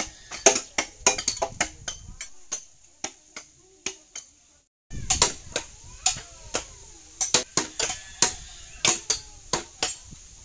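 Curved chopping blades hacking and trimming bamboo poles: a quick, irregular string of sharp chops and knocks, breaking off briefly about halfway through before resuming.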